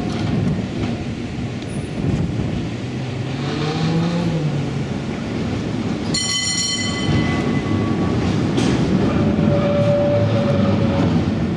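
San Francisco cable car running along its rails, a steady heavy rumble and clatter of wheels and running gear. About six seconds in, a single bright strike on the car's bell rings out over a second or two.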